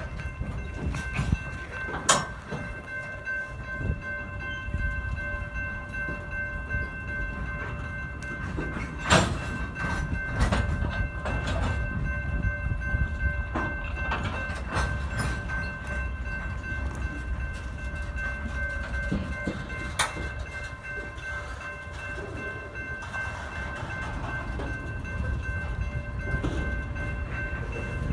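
Covered grain hopper cars of a freight train rolling past at close range: a steady low rumble of wheels on rail with sharp clanks now and then, the loudest about nine seconds in, and a steady high ring over it.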